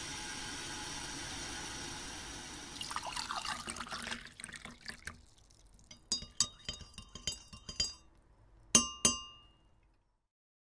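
Glass clinking: a steady hiss and a brief rushing noise give way to a run of light clinks, then two loud, ringing clinks close together near the end.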